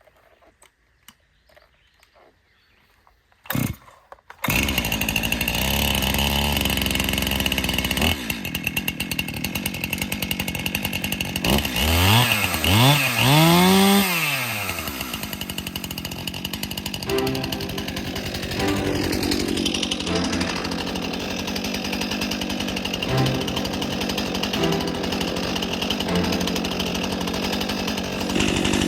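Two-stroke Stihl MS261 chainsaw starting up about four seconds in, right after a brief sharp sound, then running. Around the middle it is revved up and down three times, then it runs on more steadily.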